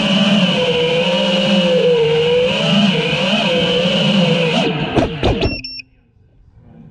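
GEPRC Mark5 FPV quadcopter's motors and propellers whining in flight, heard from its onboard camera, the pitch wavering up and down with the throttle. About five seconds in the whine sweeps down and cuts off suddenly as the quad sets down, with a short high beep.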